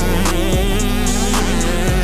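Background music with a heavy bass and a steady beat, in a hip hop or R&B style.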